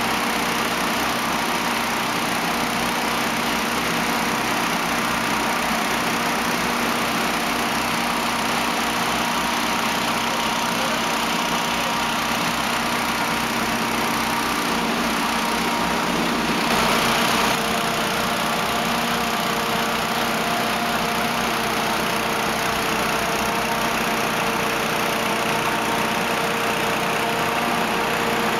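A fire-service engine running steadily at constant speed: a continuous drone with a steady hum. A brief, slightly louder rush of noise comes about 17 seconds in.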